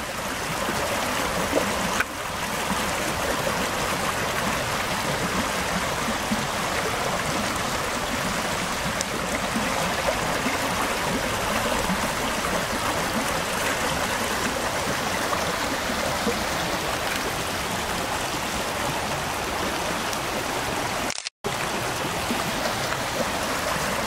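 Shallow rocky creek flowing steadily over and between stones in a small riffle. The sound breaks off for a moment near the end.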